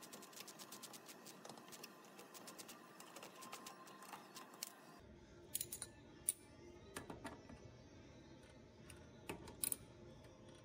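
Finger ratchet spinning a brake caliper bolt in, its pawl giving a quick, even run of faint clicks. After about five seconds come only a few scattered clicks and knocks as a ratchet handle snugs the bolt.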